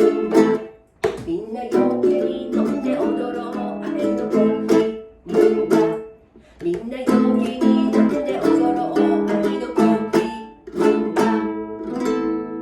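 Mini guitar strumming chords in a rumba rhythm with mini keyboards playing along; near the end the strumming stops and a last chord rings out and fades.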